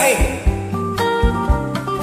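Instrumental karaoke backing track of a slow bolero, led by plucked guitar over a regular low beat.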